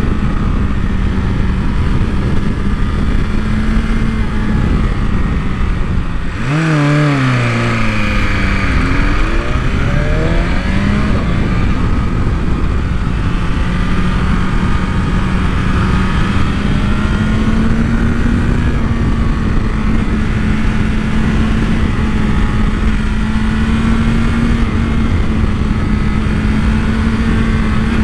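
Sport bike's engine running at a steady cruising note under heavy wind rush on the microphone. About six seconds in, the revs fall sharply off the throttle, then climb back over the next few seconds and settle into a steady note again.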